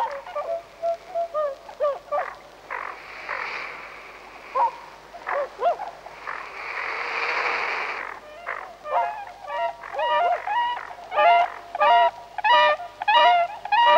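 Bewick's swans calling: scattered soft honking calls, two stretches of rushing noise in the middle, then from about nine seconds a growing chorus of rapid, repeated two-note whooping calls, given as the birds display with wings raised.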